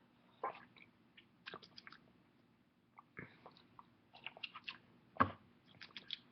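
Mouth sounds of someone drinking ramen broth from the cup: a string of short, irregular gulps, lip smacks and clicks, the loudest a little past five seconds in.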